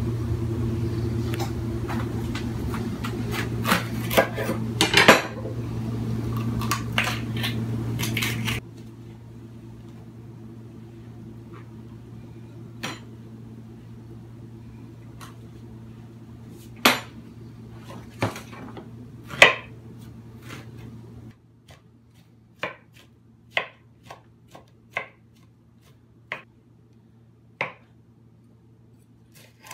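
Chef's knife knocking on a wooden cutting board and clinking against a glass bowl while onion and red pepper are cut, with scattered sharp taps over a steady low hum. Near the end the taps come about once a second as the pepper is sliced.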